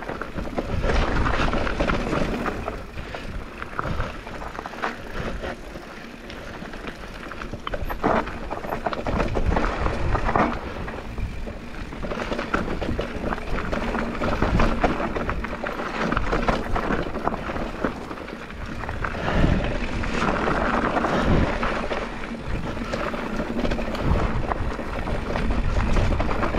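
Focus SAM2 enduro mountain bike riding downhill over a rough dirt and rock trail: tyre noise with frequent knocks and rattles from the bike, over a low wind rumble on the microphone.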